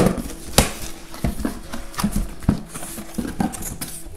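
Cardboard box being handled and its flaps pulled open: an irregular run of knocks, scrapes and rustles of cardboard, the loudest right at the start.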